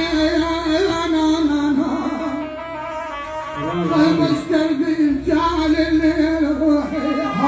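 A woman singing an Iraqi popular song into a handheld microphone, with amplified music accompanying her. She holds wavering notes with no break.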